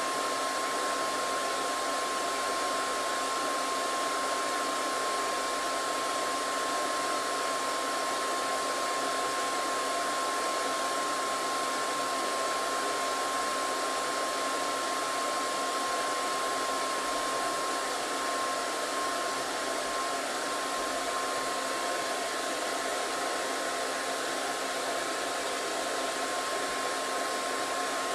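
Hair dryer running steadily: an even rush of blown air with a steady whine from its motor.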